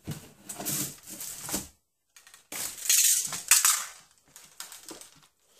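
Rummaging in a kitchen cupboard: plastic supplement jugs and containers being shifted and knocking together, in two clattering bursts with a few lighter knocks near the end.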